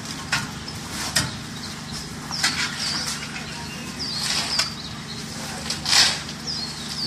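Shovels and metal pans scraping and clanking as workers handle wet concrete, irregular knocks with a sharper clank about six seconds in, over a steady low hum.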